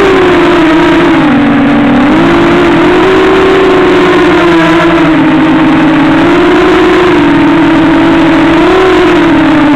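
Small multirotor drone's electric motors and propellers whining loud and close to the onboard camera. The pitch rises and falls as the throttle changes: it dips about a second in, climbs again at about two seconds, and swells briefly near the end.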